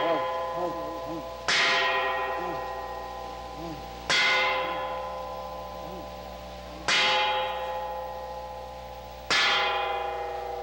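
A large bell struck four times at slow, slightly uneven intervals of two to three seconds. Each stroke rings out with many overtones and slowly fades into the next.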